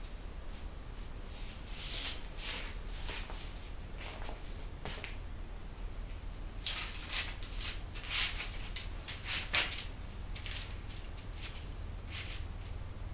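Short, irregular rustling and scuffling noises, about a dozen of them spread over several seconds, over a steady low hum.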